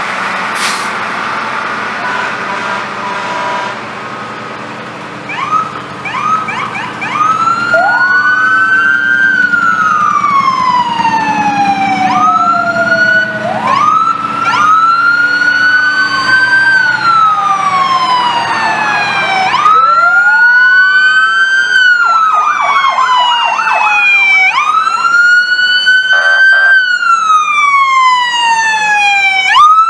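Emergency vehicle sirens wailing: after a few seconds of engine noise, each wail rises quickly and falls slowly over about three seconds, repeated again and again, with short runs of fast yelps in between.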